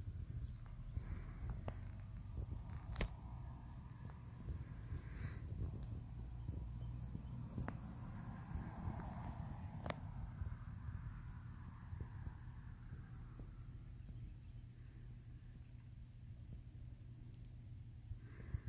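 An insect chirping in a steady run of short, evenly spaced high chirps, about four a second; they fade through the middle and come back near the end. A low rumble runs underneath, with a few sharp clicks.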